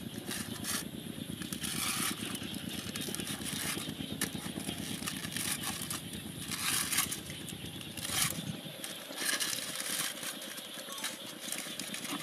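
Open wood fire crackling, with sharp pops scattered through. A low rumble underneath drops away about eight seconds in.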